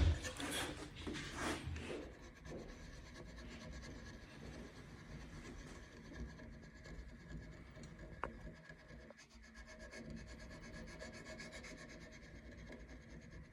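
Hand tool rubbing and scraping on the wooden stock of a double rifle as the drop points are shaped, with a few louder strokes in the first two seconds and then steady, lighter strokes.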